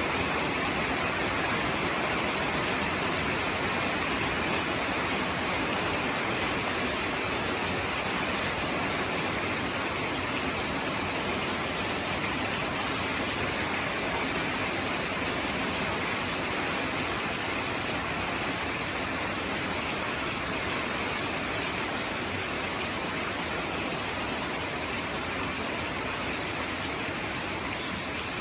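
Rain falling steadily, a dense even hiss without separate drops standing out, very slowly getting a little quieter.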